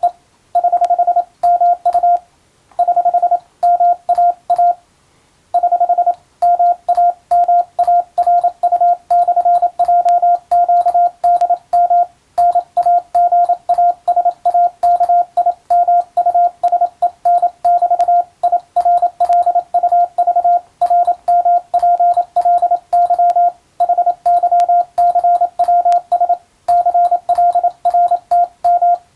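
Hand-sent Morse code: a steady mid-pitched beep keyed on and off in quick dots and dashes, with short pauses between groups, sending an English-language radiotelegram at practice speed.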